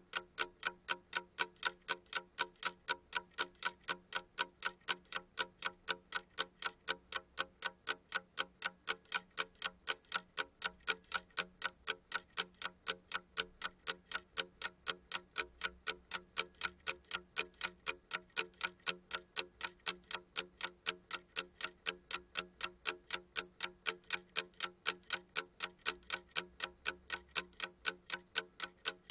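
Wind-up alarm clock's clockwork ticking, a rapid, perfectly even run of sharp ticks, several a second, without a break.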